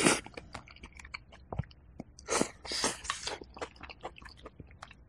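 Close-miked slurping of a spoonful of chicken porridge with crispy rice crust, followed by wet chewing with many small clicks. Two louder breathy sounds come about halfway through.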